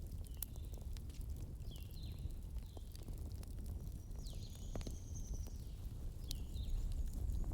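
Wood fire in a fireplace crackling, with irregular sharp pops over a low steady rumble. Several short high whistling tones come and go, the longest about four seconds in.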